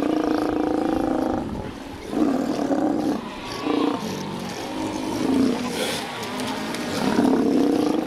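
A colony of South American sea lions calling: a long pitched call at the start, then shorter calls repeating every second or two.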